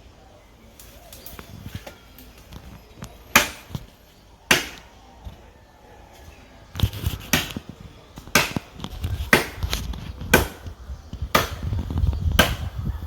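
Hand chopping of a tree trunk with a blade: two single strikes a few seconds in, then steady blows about once a second.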